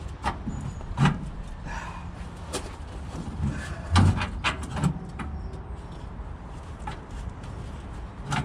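Scattered metal knocks and clunks of a steel air tank being worked into its mounting under a GAZ-66 truck, the loudest about four seconds in, over a steady low hum.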